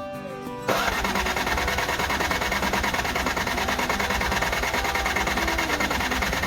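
Yard Machines riding mower's engine running steadily, cutting in suddenly about a second in: the mower now starts after the no-start repair.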